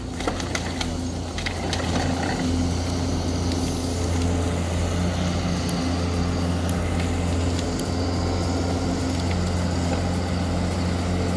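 Heavy diesel engine running at a steady speed, a constant low drone, with a few knocks and clicks in the first couple of seconds.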